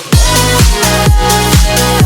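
Electronic dance music with a steady four-on-the-floor kick drum, about two beats a second, and sustained synth chords.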